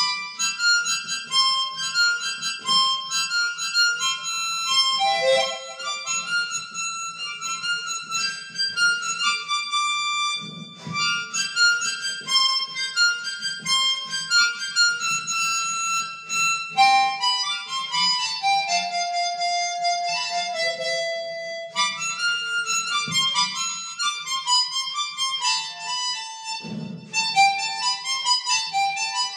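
Harmonica (mouth organ) played solo: a melody of mostly held single notes stepping up and down, with a few short breaks between phrases.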